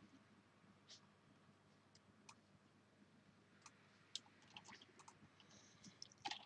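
Near silence with faint, scattered clicks from computer use: a few single clicks, then a quicker cluster in the last two seconds.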